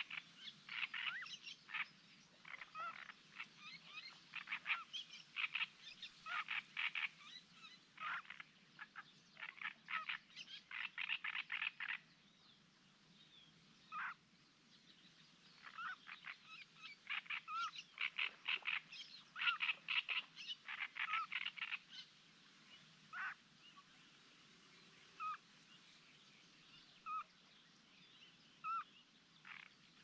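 Frogs calling: series of rapid, clicking croaks, dense at first, with a short lull about halfway, then only single spaced calls near the end.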